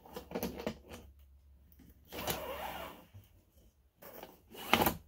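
Hands handling and tying cord on a wooden steering-shaft drum: small clicks and rubbing, about a second of rustling cord about two seconds in, and a sharp knock near the end.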